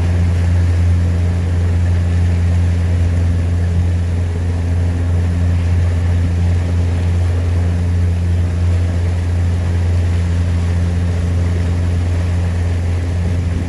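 Motorboat engine running at a steady speed, a loud, even low drone with fainter steady tones above it.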